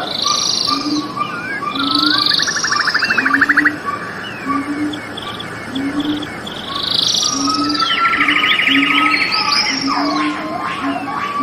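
A chorus of several birds singing and calling, with whistled glides and fast rattling trills, and a short low note repeating about once a second beneath them.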